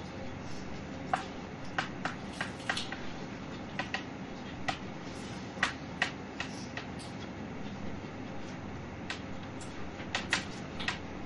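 Chalk tapping and clicking against a blackboard while writing: irregular clusters of sharp taps over a steady background hum.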